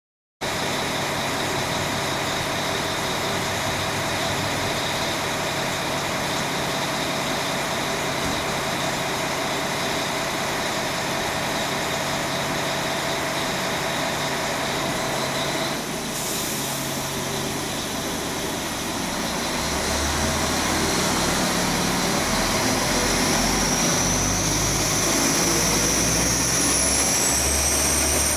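Vlexx BR 622 (Alstom Coradia LINT) diesel multiple unit running steadily while standing at the platform. About halfway through, a deeper rumble comes in from a second train moving at the platform, and near the end a rising whine builds as it gathers speed.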